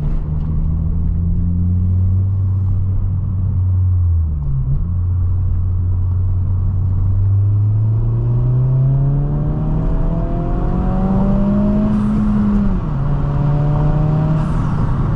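Honda Civic Si's 1.5-litre turbo four-cylinder through a MAPerformance street cat-back exhaust, cruising steadily and then accelerating, its note rising in pitch for several seconds before dropping to a lower steady note near the end, as at an upshift.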